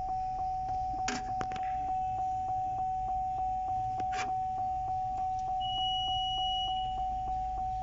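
Vehicle warning chime sounding on and on with the ignition switched on, an electronic ding repeating about four times a second, with a few sharp clicks over it.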